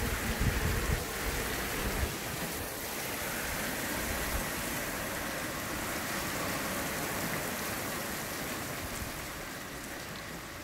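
Heavy rain pouring down in gusty wind, a steady hiss. Wind gusts rumble on the microphone in the first two seconds.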